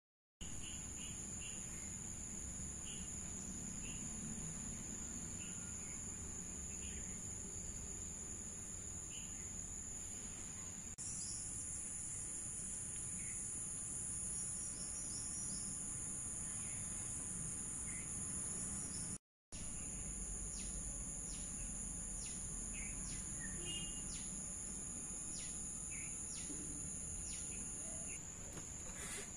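Steady, high-pitched drone of insects, with scattered short bird chirps.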